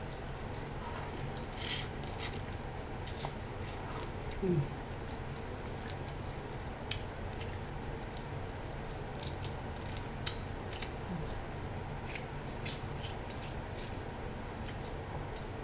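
Snow crab shells being cracked and picked apart by hand, with scattered sharp cracks and clicks spread through.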